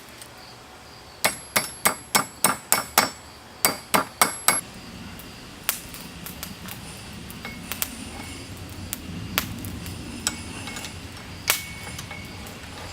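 Blacksmith's hammer striking steel on an anvil: a run of about a dozen ringing blows, roughly three a second, then scattered lighter taps and one more ringing strike near the end.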